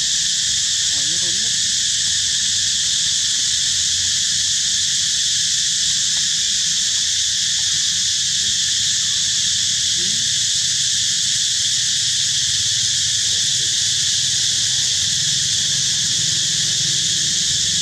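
Steady, high-pitched insect chorus, a constant dense buzz with no break.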